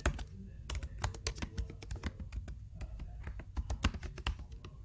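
Typing on a computer keyboard: a quick, irregular run of key clicks as a short phrase is typed.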